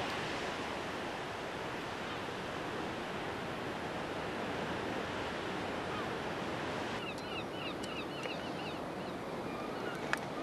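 Atlantic surf washing onto the shore in a steady rush. From about seven seconds in, a bird chirps quickly several times.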